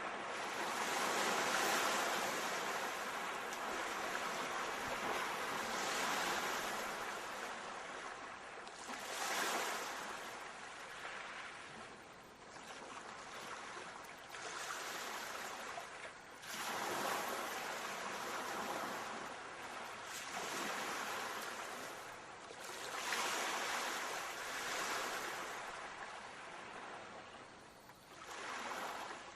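Sea waves breaking and washing on a shore, the surf swelling and falling back every few seconds.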